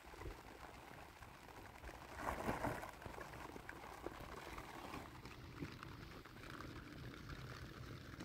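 Wind rumbling on the microphone, with light rustling and scraping as plastic sheeting and stones are handled at a tent's edge, loudest briefly about two seconds in.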